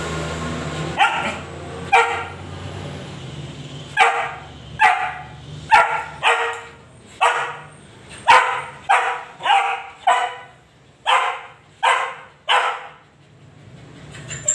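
Dog barking in short sharp barks, about fifteen of them, starting about a second in and coming every half second or so after a short pause, while a shih tzu and a corgi play-fight.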